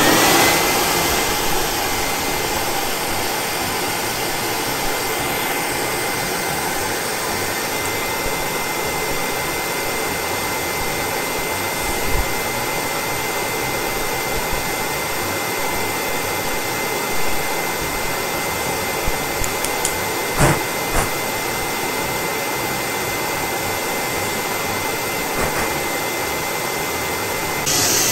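Shop-Vac wet/dry vacuum switching on and running steadily, with a thin high motor whine over the rush of air through the hose. There are a few brief knocks and rattles in the hose along the way. Near the end the airflow turns louder and hissier.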